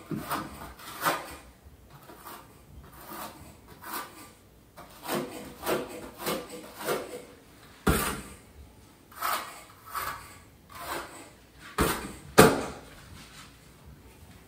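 Trowel scraping thinset mortar in a run of short, repeated strokes, with a few sharp knocks from about eight seconds in. The loudest knock comes about twelve and a half seconds in.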